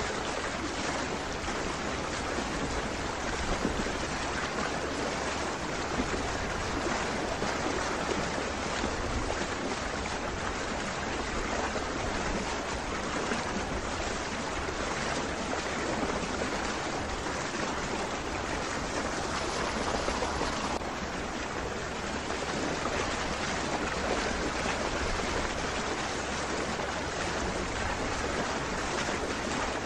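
Steady rushing of water, an even noise with no distinct events.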